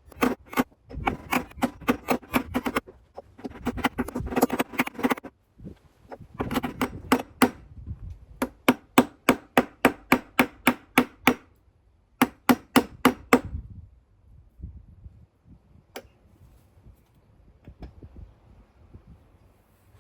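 Hammer blows on an old washing-machine drum bearing used as a drift, driving a new bearing into the tub's bearing housing: quick runs of sharp, ringing metal strikes, about five a second, broken by short pauses. After about thirteen seconds the striking stops, leaving only a couple of light knocks.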